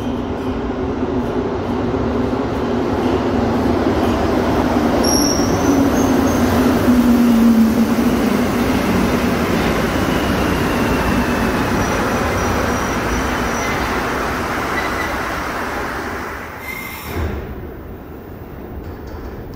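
A rubber-tyred Montreal Metro train arriving at the platform. Its running noise builds to a peak and then eases, with a motor whine that falls in pitch and a few brief high squeals, and the noise drops away near the end.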